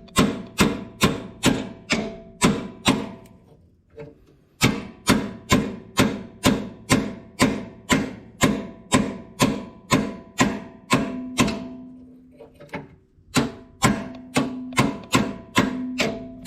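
Hammer striking a pin punch in steady, ringing metal-on-metal blows, about two a second, driving a roll pin out of a tractor's shuttle-shift shaft. The blows stop briefly twice, about four seconds in and about twelve seconds in.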